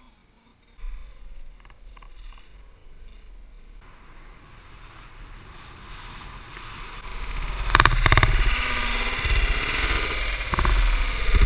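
Wind buffeting a helmet-mounted camera's microphone together with longboard wheels rolling on asphalt, building steadily as the board picks up speed and turning loud about two-thirds of the way in, with a few sharp knocks.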